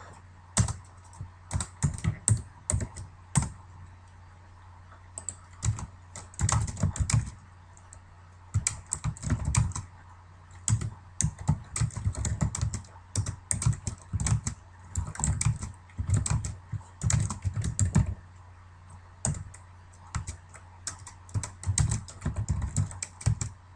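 Typing on a computer keyboard: irregular runs of quick keystrokes with short pauses between them, over a steady low hum.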